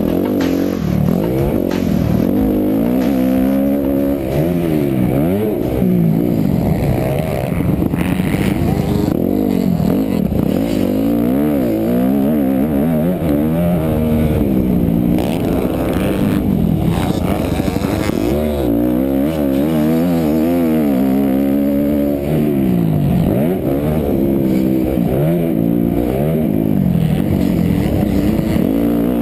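Onboard sound of a 250 motocross bike's engine under racing throttle. The revs climb and drop over and over as the rider accelerates, shifts and rolls off around the track.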